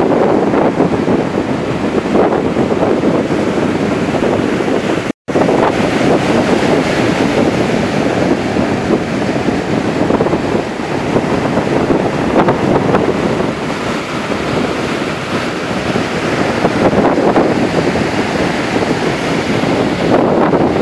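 Ocean surf breaking and washing up onto a sandy beach, a steady rushing with wind buffeting the microphone. The sound cuts out for an instant about five seconds in.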